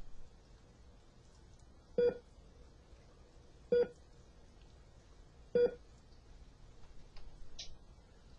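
Three short electronic beeps, evenly spaced a little under two seconds apart, over a faint background hiss.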